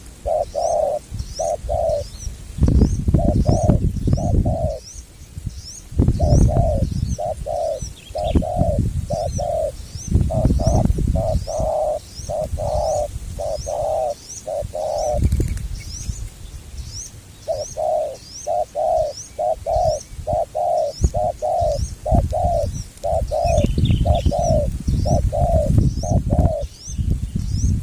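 Spotted doves (tekukur) cooing: phrases of short, low, repeated coo notes, about two to three a second, broken by short pauses. A steady series of high chirps runs underneath, and several loud low rumbles come and go.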